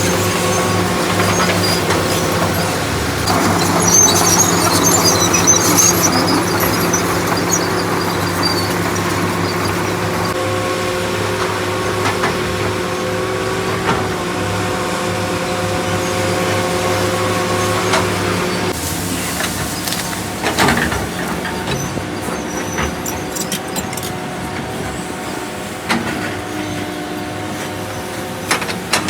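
Excavator's diesel engine running steadily, its pitch changing about two-thirds of the way through, with a few sharp metallic knocks near the end.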